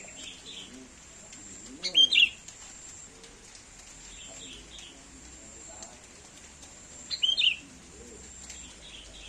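A bird calling: two loud, short, high calls with curving pitch, about five seconds apart, with softer chirps between them.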